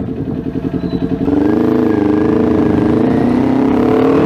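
2021 Kawasaki Ninja 400's parallel-twin engine running through an SC Project aftermarket exhaust while riding: a choppy low rumble that gets louder about a second in as the throttle opens, then holds a steady exhaust note.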